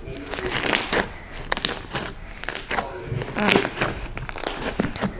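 Hands kneading and squeezing a lump of pink shaving-cream fluffy slime, with irregular wet squishing and crackling as pockets of trapped air pop.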